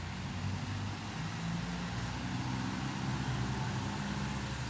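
A vehicle engine running steadily at low speed, a low hum that grows a little louder in the middle.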